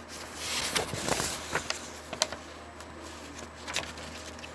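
A few sharp clicks and a short rustling hiss in the first second, over a steady low hum.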